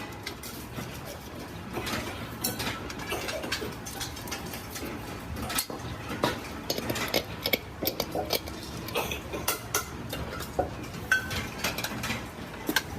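Metal pressure cooker bodies and parts clinking and knocking as they are handled, in irregular sharp clicks over a steady low factory background.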